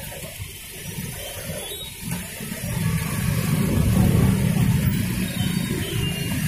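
Small pickup truck's engine running as it drives slowly past through shallow floodwater, a low rumble that grows louder from about two and a half seconds in.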